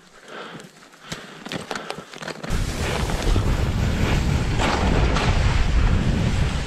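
Scattered short clicks and steps in the snow, then, about two and a half seconds in, wind suddenly starts buffeting the microphone with a heavy, steady rumble.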